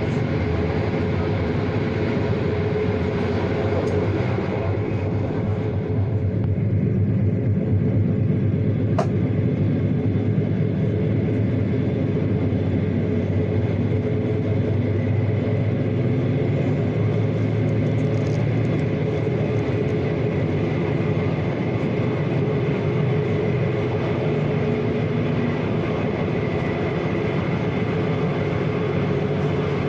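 Steady rumble of a train running on rails: wheels on the track, with a constant hum and one sharp click about nine seconds in.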